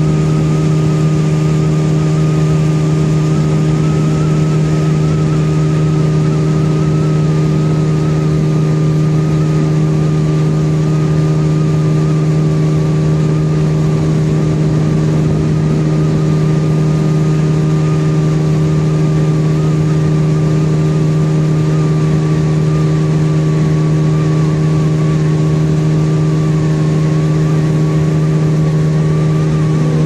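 Motorboat engine running at a steady speed, a constant hum that does not change, with the rush of wind and water.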